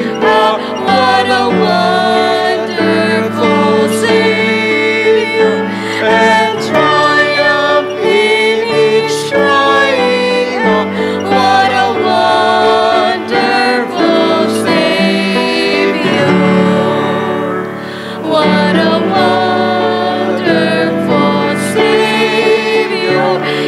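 A woman and a man singing a hymn together into a microphone, over instrumental accompaniment.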